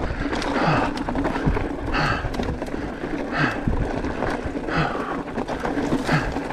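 Enduro mountain bike riding over a loose, rocky trail: tyres crunching on stones and the bike rattling and knocking over the bumps without a break.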